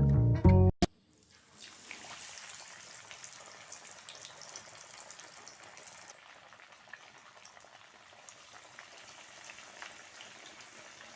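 Background music cuts off within the first second. Then fish frying in hot oil: a faint steady sizzle with small scattered crackles.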